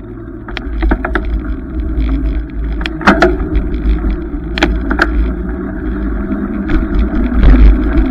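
Wind and road rumble on a bicycle-mounted camera while riding, with scattered sharp clicks and rattles as the bike goes over bumps. The loudest rattles come about three seconds in and again near five seconds.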